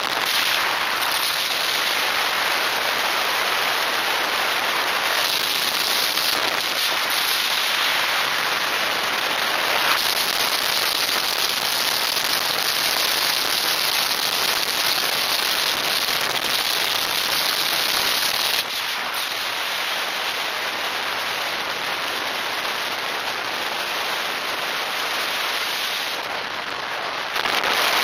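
Wind rushing over a motorcycle-mounted camera's microphone at highway speed: a steady, dense rush with no clear engine note, dropping slightly in level a little past two-thirds of the way through.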